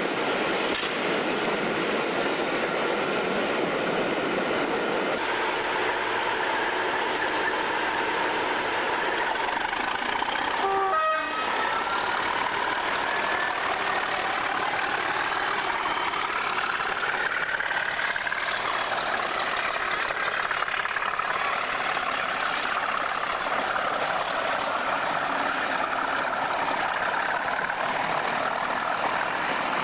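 English Electric Class 37 diesel locomotive passing under power with a train of coaches. A whine climbs in pitch over a few seconds and then holds steady and high, the Class 37's typical turbocharger whistle.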